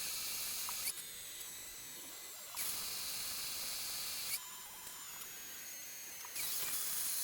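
Benchtop milling machine running and squaring up a sawn metal plate: a steady hiss with a faint high whine, its level stepping abruptly up and down every couple of seconds.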